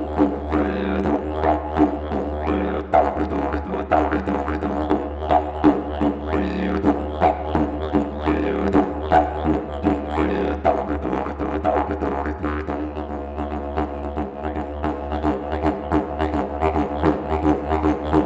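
Didgeridoo played in one unbroken low drone, kept going by circular breathing, with quick rhythmic pulses and wah-like sweeps of tone shaped by the mouth and voice.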